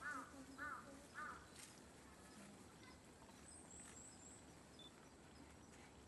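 Faint crow cawing three times, evenly spaced, in the first second and a half, then a quick series of four thin, high, falling calls from small birds around the middle.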